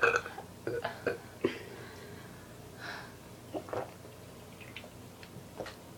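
A person gulping down soda (Mountain Dew), with short swallowing clicks and a few breaths between gulps.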